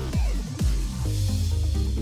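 Electronic dance music with falling bass sweeps that give way to a held low chord about a second in.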